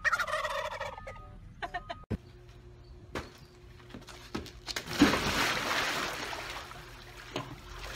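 Wild turkey toms gobbling in the first two seconds, a falling, rattling call. A few seconds later a person jumps into a swimming pool: a loud splash about five seconds in, the water noise fading over the next two seconds.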